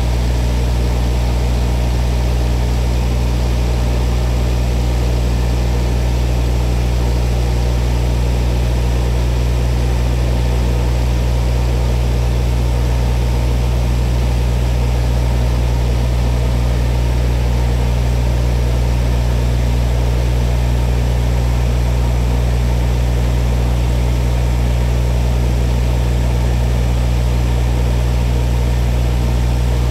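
Large spinning cutter head of a CNC machine running over a mirror blank: a steady, loud low hum that does not change.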